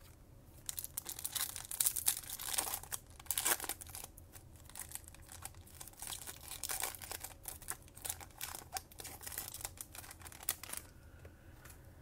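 Foil wrapper of a Topps Chrome baseball card pack crinkling and tearing as it is ripped open by hand, in irregular crackles that stop near the end.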